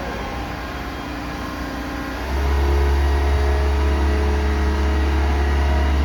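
Diesel engine of a Yanmar B95W wheeled excavator running, with a steady pitched hum that becomes louder and deeper about two seconds in.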